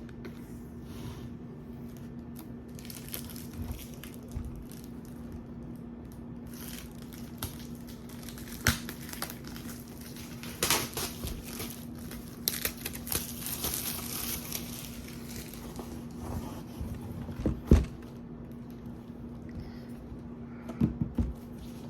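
Packaging on a MacBook Air box being peeled and torn open, with crinkling and tearing in irregular bursts. There are a few sharp knocks as the box is handled, the loudest near the end.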